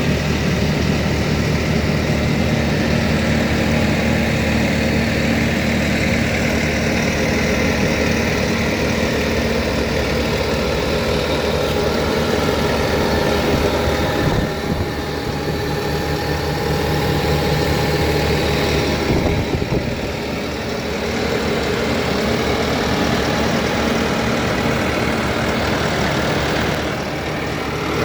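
Diesel engine of a 2014 Bobcat T590 compact track loader running steadily at idle, dipping briefly in level a few times.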